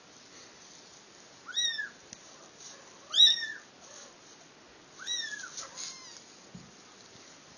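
Young kitten mewing: three high, thin cries that rise and fall, about a second and a half apart, and a fainter fourth just after the third. These are the cries of a kitten stranded on the straw away from its mother.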